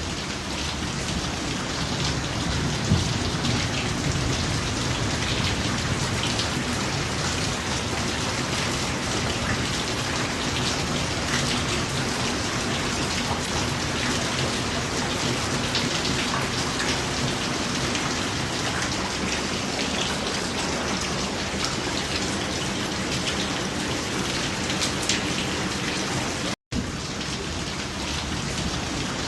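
Heavy rain pouring steadily, a dense even hiss, cutting out for an instant near the end.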